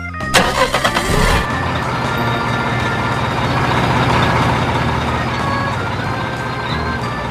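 A truck engine cranking in a quick burst of pulses, catching about a second in and then running steadily.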